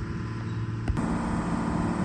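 Case 125B excavator's engine running steadily as the machine creeps up toward the gate. There is a sharp click just before a second in, after which the engine is a little louder.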